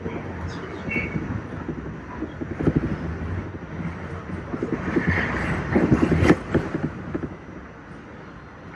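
Subway train running on track, its wheels clattering with a run of knocks over rail joints that grows loudest about six seconds in and then eases off.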